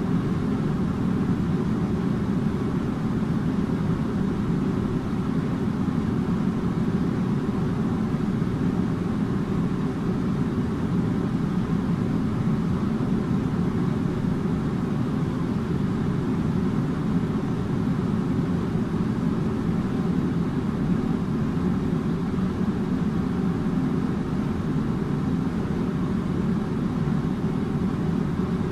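Air conditioner running steadily: an even, low hum with a rush of air, unchanging throughout.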